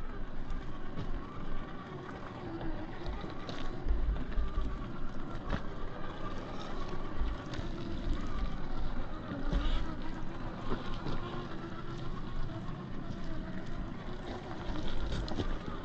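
Gmade GS02F Buffalo RC crawler's electric motor and drivetrain whining as it crawls, the pitch rising and falling with the throttle, with scattered clicks. Wind rumbles on the microphone in gusts.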